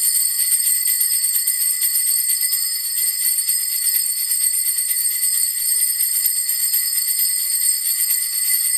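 Sleigh bells shaken continuously: a dense, unbroken jingle made of rapid tiny strikes, at a steady loudness.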